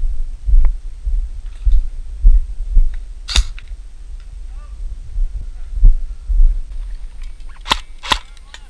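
Dull low thumps about twice a second from a player's footsteps jolting a body-worn camera, with a sharp click about three and a half seconds in and two more near the end.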